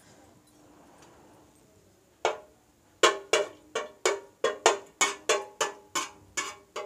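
A steel spoon striking a metal nonstick pan: one sharp clink about two seconds in, then a run of about a dozen ringing clinks, roughly three a second, as the spoon works lumps of ghee in the pan.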